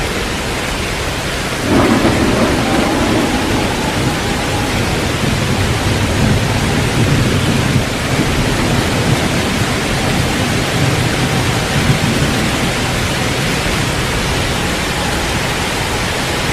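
Heavy, steady tropical downpour. About two seconds in, a loud thunderclap breaks in and rolls on as a long low rumble, with further rumbles later.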